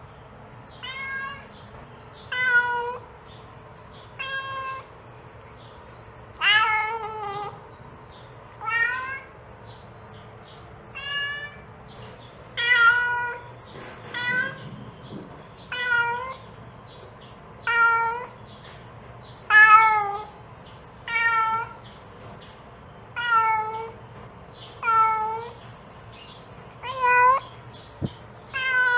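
Mother cat calling her kittens: a steady series of short meows, one about every two seconds, each bending down in pitch at the end.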